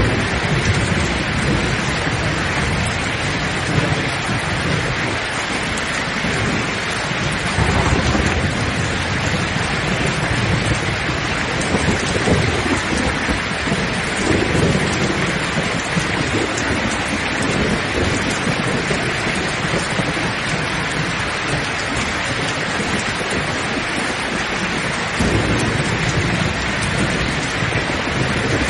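Heavy rain falling steadily in a thunderstorm, with low rolls of thunder swelling up several times, around 8, 12, 15 and 25 seconds in.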